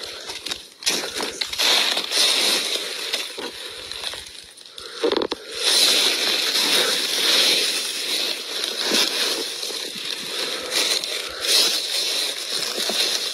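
Dry fallen leaves rustling and crackling under feet and handling as someone moves through deep leaf litter, uneven and louder from about halfway through.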